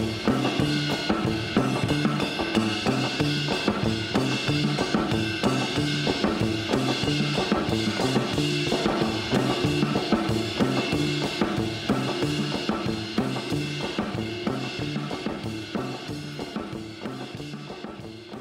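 Music with a steady drum-kit beat over a repeating bass line, fading out over the last few seconds.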